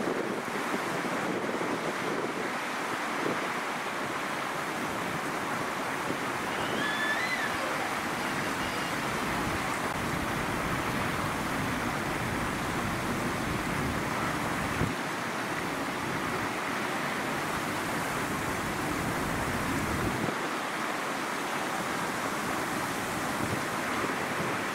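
Strong gusty wind blowing steadily, with gusts buffeting the microphone in low rumbles through the middle stretch.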